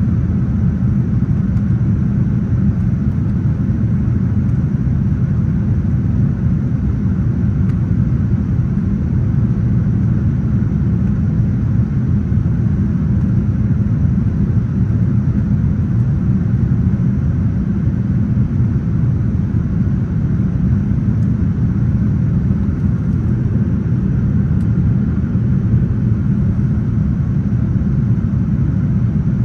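Steady low rumble of jet engines and rushing air heard inside an airliner cabin during the climb after takeoff.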